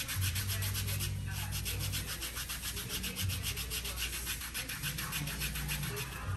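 Quick, rhythmic rubbing strokes, several a second, as gloved hands work scrub over a leg and foot during a pedicure massage. A low, steady hum runs underneath.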